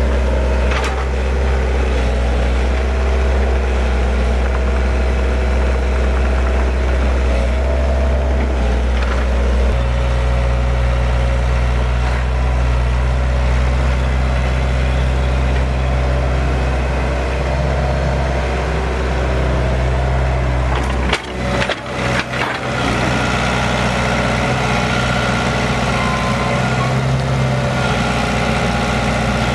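Excavator diesel engine running steadily at a low idle, its note shifting about ten seconds in, with a brief break about two-thirds of the way through.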